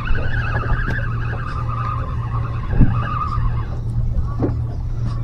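Spinning reel being cranked as a fish is reeled up to the boat, giving a steady, slightly wavering whine that stops about three and a half seconds in, over a constant low rumble, with a single thump near the three-second mark.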